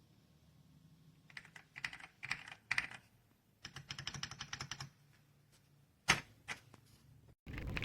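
Typing on an RK Royal Kludge R75 gasket-mounted mechanical keyboard: a few scattered keystrokes, then a quick run of rapid keystrokes, then a few sharper, louder key strikes, with a louder flurry of typing starting near the end.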